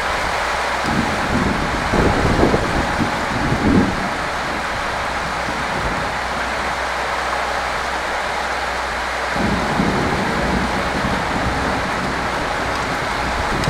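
Steady rain falling, an even hiss. A low rumble rises under it about a second in, swells for a few seconds, and returns about two-thirds of the way through.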